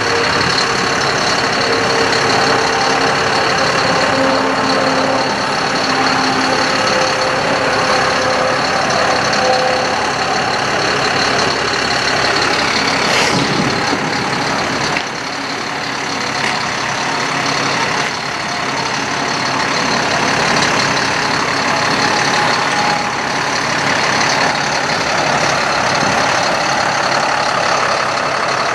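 Truck engine running steadily with the power take-off engaged, driving the aerial boom's hydraulics. A faint wavering tone comes through over it in the first ten seconds, and there is a single knock about halfway through.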